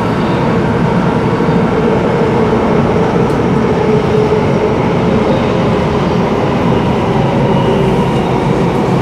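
Singapore MRT train running through a tunnel, heard from inside the carriage: a steady, loud rumble of wheels on rail with a constant hum, and a faint high whine coming in near the end.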